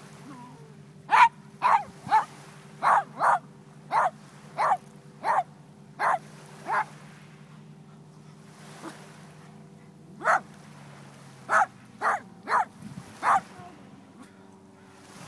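A dog barking repeatedly, about ten sharp barks at one or two a second, then a pause of a few seconds and about five more.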